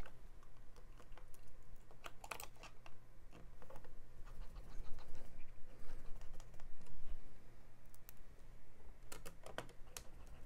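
Scattered light clicks and taps of fingers and small parts handled on the metal display connector cover inside an opened MacBook Pro, with a few sharper clicks about two seconds in and near the end.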